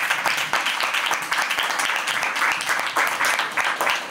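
Audience applause: many hands clapping at once in a dense, steady patter.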